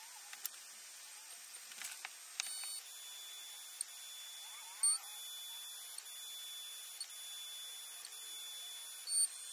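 Homemade egg-painting robot at work: its stepper motors whine with several thin, steady high tones, with a few faint clicks. About five and nine seconds in come short, loud buzzes as the machine moves.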